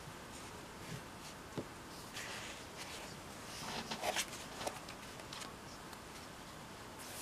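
Paper handling: a hand smoothing and pressing down the pages of an open workbook and grid practice paper, giving soft rustles and small taps, busiest in the middle with the loudest rustle about four seconds in.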